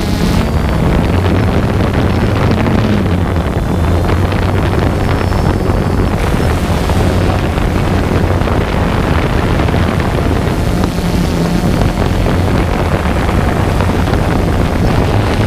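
Wind buffeting the microphone, with a low steady hum underneath.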